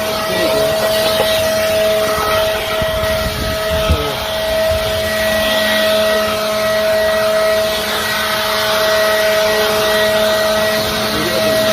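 Leaf blower vacuum running in blower mode at a steady speed, its motor and fan giving a constant whine of several held tones over a rush of air.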